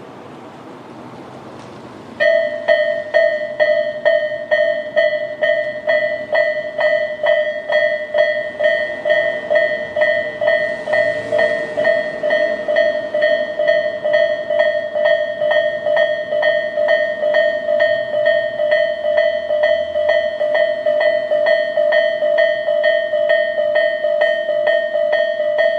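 Japanese railway level-crossing electronic warning bell, Tobu 'sound A', starting about two seconds in and ringing at about two strikes a second: the crossing signalling an approaching train. Before it starts, only wind noise.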